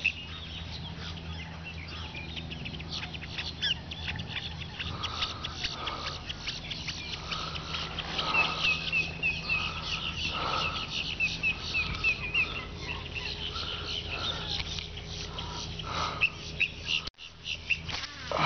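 Marsh birds chirping and calling, with a fast run of repeated high notes in the middle, over a steady low hum.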